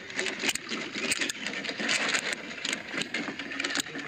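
Wire-mesh fish trap rattling and clattering as it is handled in a wooden canoe, with many irregular clicks and knocks.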